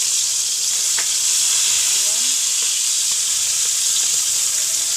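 Tuyo (salted dried fish) frying in hot oil in a pan: a steady sizzling hiss, with a faint click about a second in.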